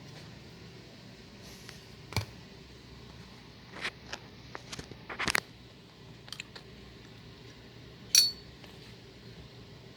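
Scattered clicks and clinks of small hard parts being handled while a ceiling fan light kit is fitted. The loudest is a sharp clink about eight seconds in that rings briefly.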